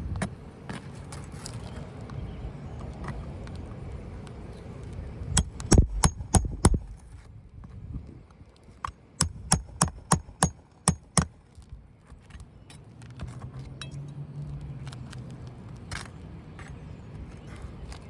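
Hammer striking metal in two quick runs of sharp, clinking blows, about three a second in the second run: roofing nails being worked loose to free an asphalt shingle.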